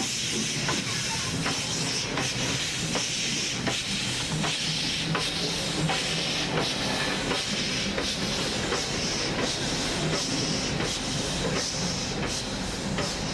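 Fireless Heisler geared steam locomotive running on stored steam: a steady hiss of steam with sharp, regular ticks about every two-thirds of a second.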